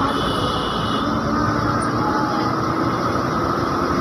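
Bus engine and road noise heard from inside the moving bus: a steady, even running sound with a held whine through it.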